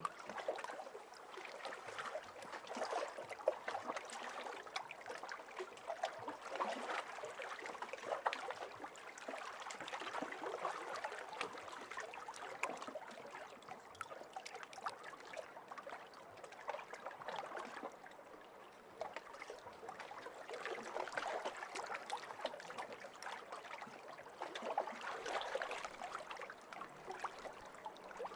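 Small lake waves lapping and trickling against the hull of a floating boat, with many little splashes and gurgles that swell and ease every few seconds.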